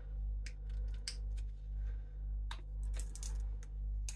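Silicone mould being flexed and peeled off a cast plaster figure: scattered small clicks and crackles, with a short rustle near the middle, over a steady low hum.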